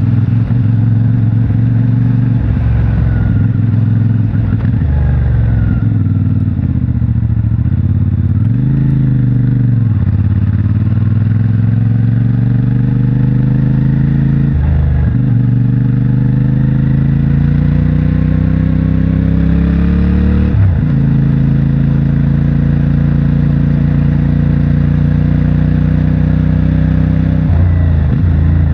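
CFMOTO 450MT's 449 cc parallel-twin engine through its stock exhaust, pulling on the road. The revs climb steadily and drop sharply at several gear changes, with one easing-off and recovery partway through.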